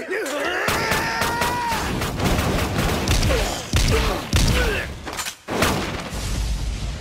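A man's yell as he charges, then a rapid run of sharp hits and slashes, with short cries among them: fight sound effects of blades cutting into bodies.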